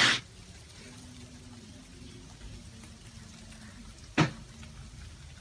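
Faint steady patter of volcanic ash and grit falling, sounding like light rain. A brief scrape of a finger drawn through the ash layer on a table cuts off at the start, and a single sharp tap comes about four seconds in.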